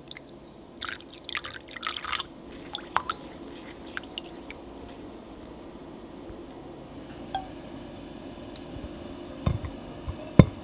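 Water poured from a glass measuring cup into a glass mixing bowl of sugar, splashing in the first couple of seconds, then a silicone spatula stirring and lightly clicking against the glass bowl. Near the end come a few dull knocks and one sharp, loud knock.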